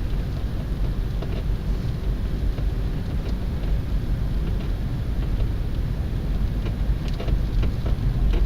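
Front suspension of a KIA Cerato YD creaking a few times, faint short creaks about a second in, around three seconds in and in a cluster near the end, over a steady low vehicle rumble. The creaking comes on in frosts of −25 °C and below, and the dealer has not found its cause.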